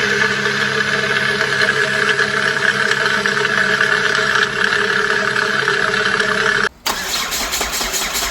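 Car engine idling steadily. About seven seconds in it breaks off for an instant and resumes as a rougher idle with a fast ticking.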